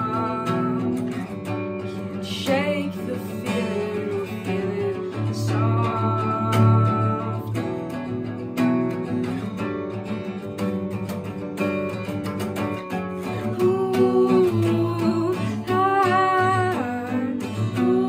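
Acoustic guitar strummed steadily while a young voice sings over it in phrases, with short gaps where only the guitar plays.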